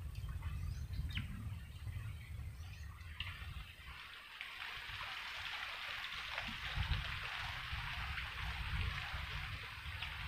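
Outdoor ambience: a low rumble of wind on the microphone, a few short bird chirps in the first three seconds, then a steady hiss that sets in about three seconds in.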